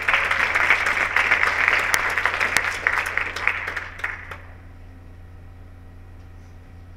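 Audience applauding, dense clapping that fades out about four seconds in, leaving a steady low hum.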